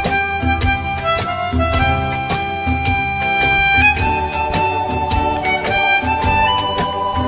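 Harmonica playing a Hindi film-song melody in long held notes over a backing track with bass and a steady beat.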